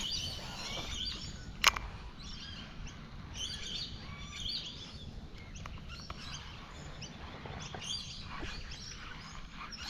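Wild birds chirping and calling in short, repeated notes, over a steady low rumble. A single sharp click about one and a half seconds in.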